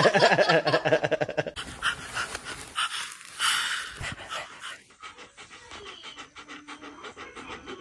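A dog panting rapidly, in quick, even strokes, quieter in the second half.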